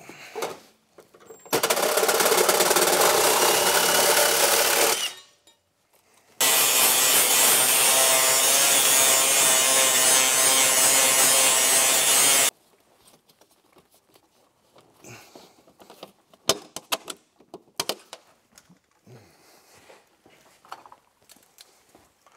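Electric angle grinder with an abrasive disc grinding a rough cut metal edge smooth. It runs twice, about three and a half seconds and then about six, each run starting and cutting off abruptly. Light clicks and rattles of handling follow.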